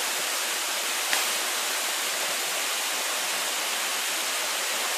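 Desert canyon waterfall rushing: a steady hiss of falling water. A faint brief tick comes about a second in.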